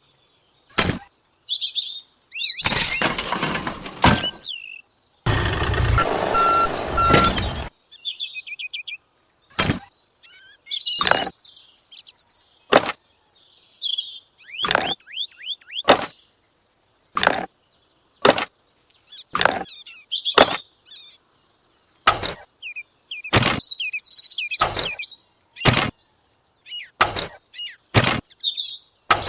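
Small birds chirping, with sharp single clicks or knocks about once a second and two short bursts of hiss-like noise early on.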